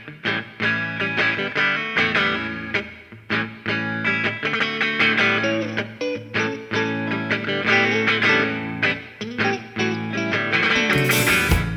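Instrumental intro of a studio rock recording: electric guitars with effects play picked and strummed notes over a steady bass line. A bright noisy burst comes near the end as the song builds.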